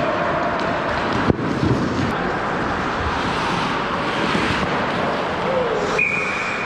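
Ice hockey game noise picked up by a net-mounted camera: skates scraping the ice, players calling out, and wind-like rushing noise on the microphone. There is one sharp stick-and-puck crack about a second in, and a high steady tone starts near the end.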